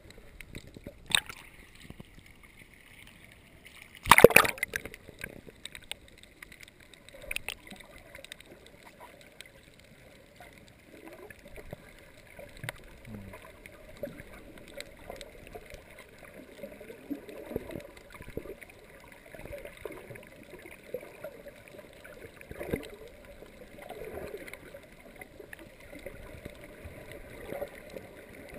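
Underwater noise picked up by a GoPro camera in its waterproof housing: a steady muffled water sound with scattered small clicks, a sharp click about a second in and a loud knock about four seconds in.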